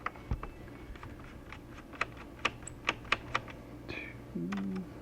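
Irregular light clicking and tapping of a plastic laptop case being handled and worked apart, about a dozen sharp clicks in a few seconds.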